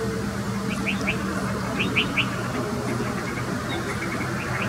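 Steady low hum of an idling vehicle engine, with two short clusters of quick, high bird chirps about one and two seconds in.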